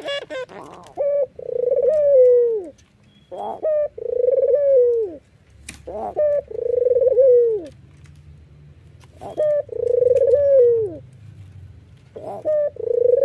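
White ringneck (Barbary) dove giving its bow-coo five times, about every two and a half seconds. Each call is a short note followed by a longer rolling coo that drops in pitch at the end.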